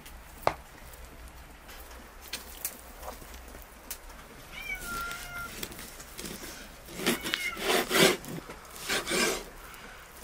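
A cat meowing several times, with curving, wavering calls from about the middle on, loudest near the end. A sharp knock of a cleaver chopping lamb on a wooden board about half a second in, with a few lighter knocks after.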